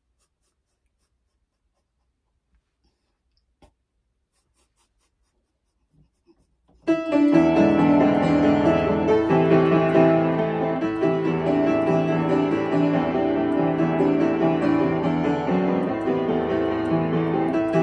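Near silence for about the first seven seconds, then a piano piece starts abruptly and is played on at a steady, full level.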